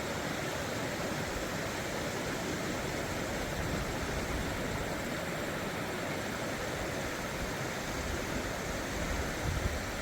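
Steady rushing of river water over rocks, an even hiss without rhythm. Low rumbling bumps grow stronger near the end.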